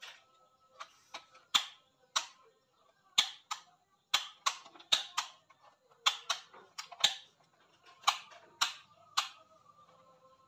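Modular rocker light switches on a switch board flicked on and off to test lamps, giving about twenty sharp clicks at uneven intervals, some in quick pairs.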